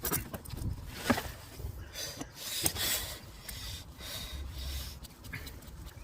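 Metal parts scraping, rubbing and clicking as a turbocharger component and its bolts are worked into place by hand, in short irregular bursts.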